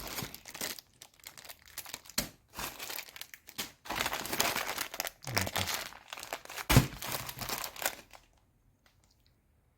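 Plastic packaging crinkling and rustling in irregular bursts as small bags of car trim clips and connectors are handled, with one sharper knock near the end.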